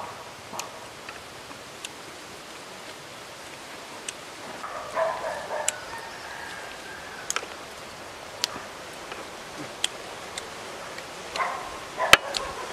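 Scattered sharp clicks and taps of fingers working in a coconut-shell bowl, the loudest near the end. An animal calls briefly about five seconds in and again near the end.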